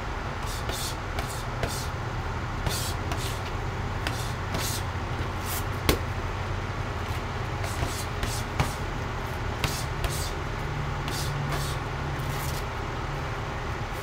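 Boxing gloves striking focus mitts during pad work: a few sharp smacks, the loudest about six seconds in, among short hissing sounds, over a steady low rumble of traffic.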